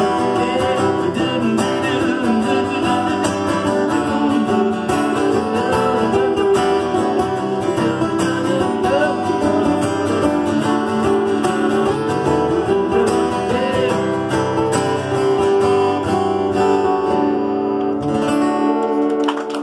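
Two acoustic guitars strummed together in an instrumental passage, the playing thinning out and stopping just before the end.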